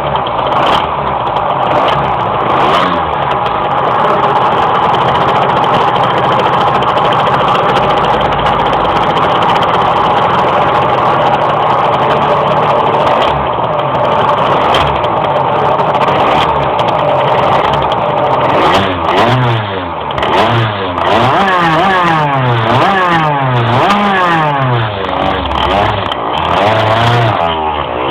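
Tuned 50cc two-stroke engine running at a steady speed, then revved up and down repeatedly in quick rising and falling sweeps for the last ten seconds or so. The engine struggles to climb in revs.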